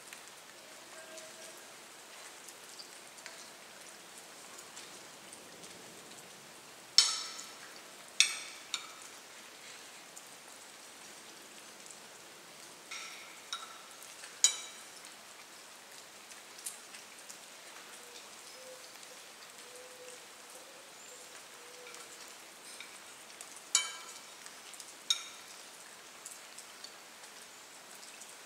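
Metal spoon clinking and scraping against a ceramic dinner plate while eating: about eight sharp clinks with a short ring, spaced irregularly, the loudest in pairs about a quarter of the way in and again near the end, over a faint steady hiss.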